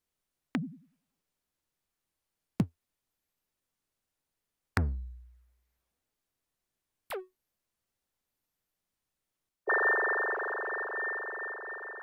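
Teenage Engineering PO-32 Tonic pocket operator playing sound-pack samples one pad at a time: four short synthetic hits about two seconds apart. The first is a low blip, the second a click falling in pitch, the third a hit with a deep low tail lasting about a second, and the fourth a short zap falling in pitch. Near the end a sustained synth tone starts and slowly fades.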